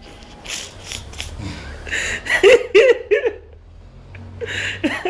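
A man snoring in deep sleep, two long snores, with others giggling in between.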